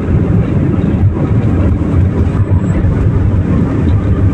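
Steady road and engine noise inside a moving car's cabin, with a strong low rumble.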